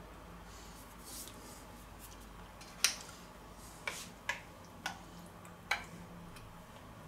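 A metal spoon clinking against a stainless steel bowl as spinach is scraped out of it: five sharp clinks between about three and six seconds in. A soft rustle of grated cheese being spread by hand comes about a second in.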